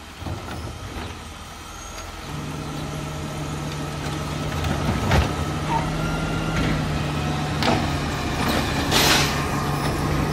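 Garbage truck's engine settling into a steady higher speed about two seconds in, as it runs its packing hydraulics. A single knock comes about five seconds in, and a short hiss near the end.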